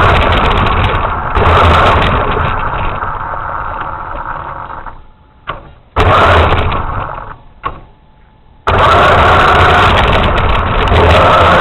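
A radio-controlled truck's motor running loudly, fading over a few seconds as it moves off. Near the middle it drops to near quiet with a couple of faint clicks, broken by a brief loud stretch. It then cuts back in loud and steady.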